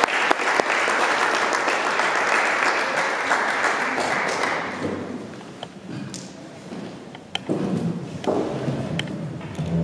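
Congregation applauding in a church hall, dying away about five seconds in, followed by a few scattered thumps and knocks.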